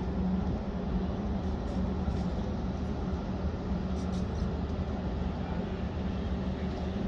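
A large engine running steadily: an even, low drone with a constant hum.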